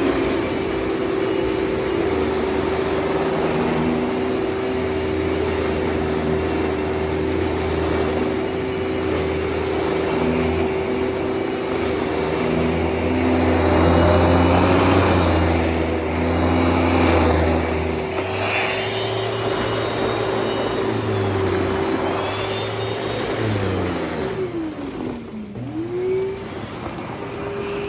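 Kenmore Whisper Tone canister vacuum running with its beater-bar powerhead, a steady motor whine over a low rumble, louder in stretches as it sucks up shredded paper. Near the end the motor's pitch drops sharply and climbs back up.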